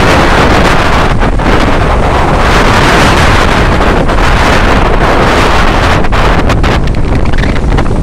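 Strong wind buffeting the microphone over the steady rush of breaking surf from a rough, foamy sea.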